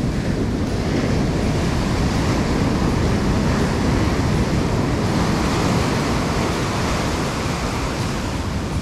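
Ocean surf breaking and foam washing up a sand beach in a steady rush, with wind on the microphone.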